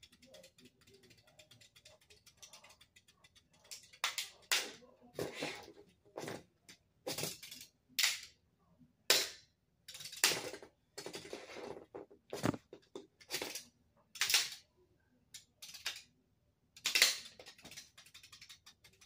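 Two Lego spinning tops clashing: sharp plastic clacks and short rattles at irregular intervals as they strike each other. The hits are faint and sparse at first, then come loud and often from about four seconds in.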